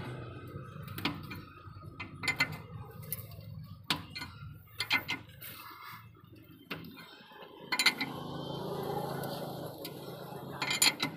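Steel bar working a tractor's screw jack: scattered sharp metallic clinks and knocks at irregular intervals as the jack is turned.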